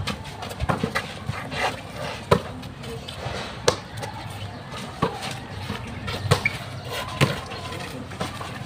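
Irregular knocks and clatter, a few sharper ones standing out, with faint voices underneath.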